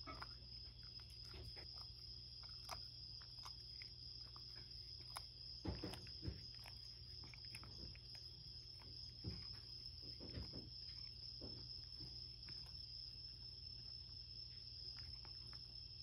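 A cat lapping and licking at a ceramic bowl, soft scattered tongue clicks and small taps that thin out after about eight seconds, over a steady high-pitched whine and a low hum.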